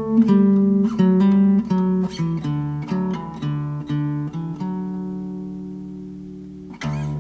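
Background music on acoustic guitar: a run of plucked notes, then a chord left ringing and fading away, with new picking starting near the end.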